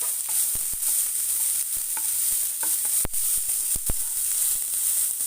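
Chopped onions, chana dal and green chillies sizzling in hot oil in a pan as they are stirred, with several sharp knocks of the stirring utensil against the pan, the loudest a little past halfway.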